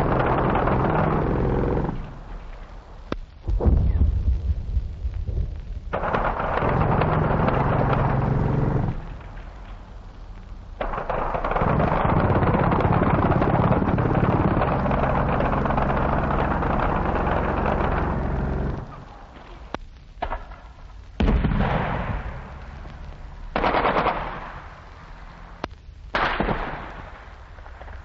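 Machine-gun fire in a wartime field recording of British Bren and Vickers guns and German MG 42 machine guns. Long stretches of continuous fire, broken by short lulls, fill the first two-thirds. Shorter separate bursts follow near the end.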